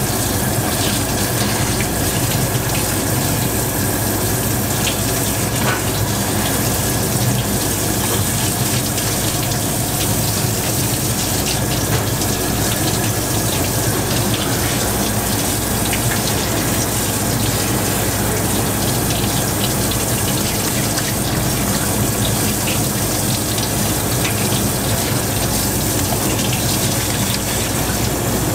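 Kitchen tap running steadily, its stream splashing over a puffer fish fillet being rinsed by hand, with a steady low hum underneath.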